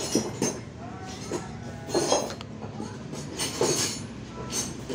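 A series of light, irregular metallic clinks and knocks, about eight, over a steady low mechanical hum.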